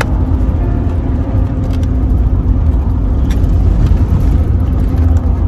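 Road and engine noise inside the cabin of a car driving at speed: a loud, steady low rumble.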